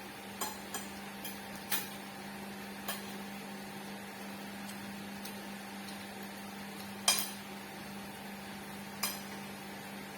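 Scattered clinks of cutlery against dishes, a few sharp taps with the loudest about seven seconds in, over a steady low hum.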